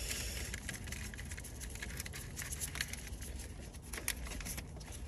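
Irregular light clicks and taps of hand tools on engine fasteners and parts, over a low steady hum.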